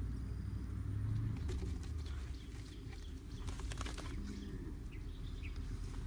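Handling noise from a PVC pipe trap being worked in grass, with a cluster of clicks and rustles a little past halfway, and a few short bird chirps near the end.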